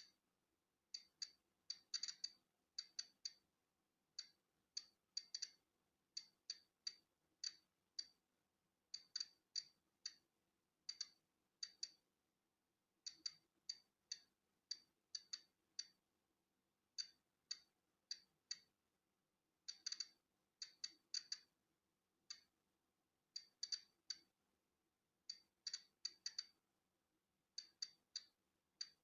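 Polon EKO-C digital Geiger counter clicking irregularly as it counts natural background radiation. Short, sharp, high clicks come in small uneven clusters, with gaps of a second or so of quiet between them.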